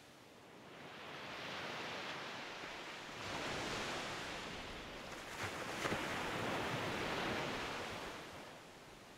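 Ocean surf breaking on rocks: rushing waves swell up in surges, with a couple of sharp splashes about five and a half to six seconds in, then die away near the end.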